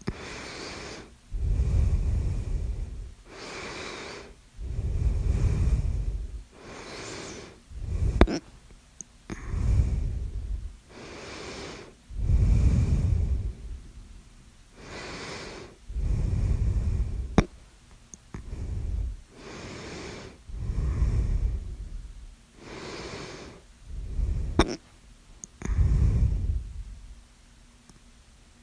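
A person's heavy breathing close to the microphone, each breath a second or two long, louder and softer breaths alternating, between bouts of hiccups. A few short sharp hiccups cut in, about 8, 17 and 25 seconds in.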